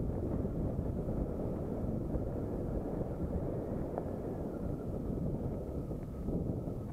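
Wind rushing over the microphone of a mountain bike's camera, with a steady low rumble as the bike rolls down a dirt singletrack.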